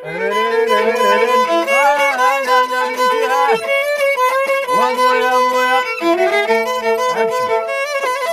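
Violin playing a sliding, ornamented melody in a Moroccan chaabi song's instrumental break, over a steady held note.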